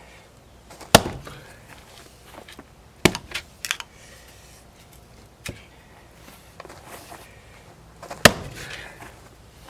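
Sharp blows splitting firewood: three loud strikes about one, three and eight seconds in, the middle one followed by a couple of smaller cracks, with a light knock between them.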